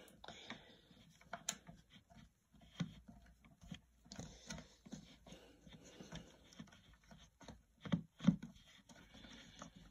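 Faint handling noises from the plastic hull and lid of an RC boat: scattered light taps, clicks and rubs, with two louder dull knocks about eight seconds in.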